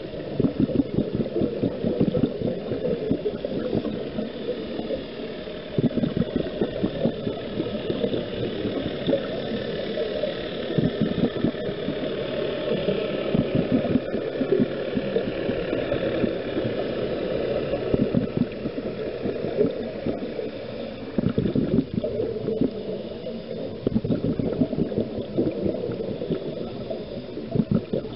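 Scuba diver's regulator exhaust bubbles gurgling underwater, heard through the camera housing, easing off briefly a few times between breaths.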